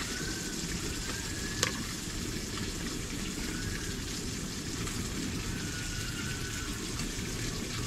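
Steady hissing background noise, with one sharp click about one and a half seconds in as a fork is set down on a plate.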